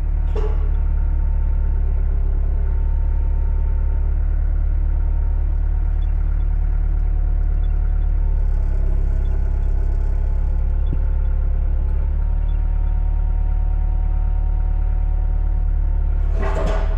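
Diesel engine of a Kubota KX121-3 mini excavator running steadily, a constant low rumble with a steady drone.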